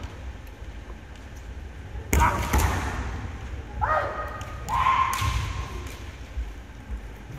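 Kendo fencers' kiai shouts, drawn-out cries that come about two, four and five seconds in. The first comes with two sharp cracks of impact, from a strike with a bamboo shinai and a stamp on the wooden floor.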